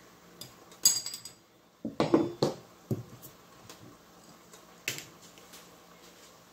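Cookware and utensils being handled: a ringing metallic clink about a second in, then a quick cluster of knocks around two seconds, and a few lighter taps.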